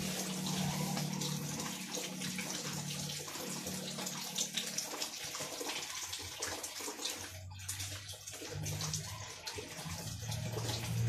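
Steady rushing of running water, with a low hum that fades out early on and returns near the end.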